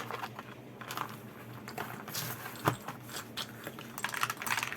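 Scattered clicks and scraping of small parts being handled and pulled off a public address amplifier under repair, with one sharper click about two and a half seconds in and a brief flurry of scraping near the end.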